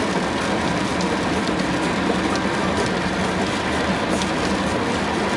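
Steady road and engine noise inside the cabin of a moving car, an even rushing hum with a low rumble.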